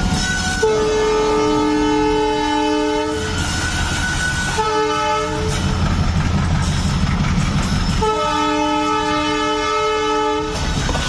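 WDM3A diesel locomotive sounding its multi-tone air horn in three blasts, long, short, long, over the low rumble of its engine and the goods train rolling past.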